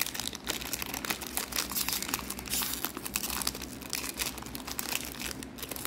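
Foil 2021 Panini Score trading-card pack crinkling as it is handled and torn open by hand: a dense, irregular run of crackles.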